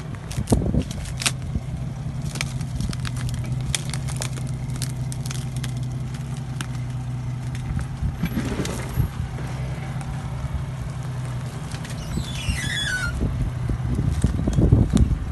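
Jeep 4x4's engine running at low, steady revs as it crawls over rocks, with scattered crackles and scrapes of brush against the body, mostly in the first few seconds. A brief high falling chirp comes about twelve seconds in, and the engine gets louder near the end.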